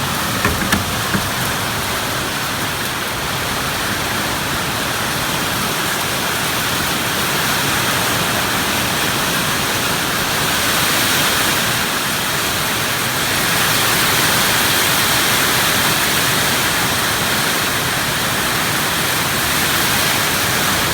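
Heavy rain pouring down in a storm, a steady loud hiss that swells a little about ten seconds in, with a few sharp ticks in the first second.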